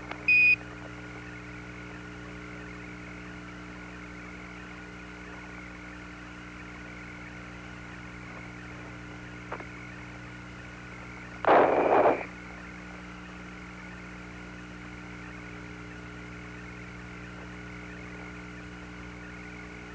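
Apollo lunar air-to-ground radio channel: a steady hiss with a constant hum of several fixed tones. A short high beep comes right at the start, the Quindar tone that closes a Houston transmission, and a brief burst of voice cuts in about halfway through.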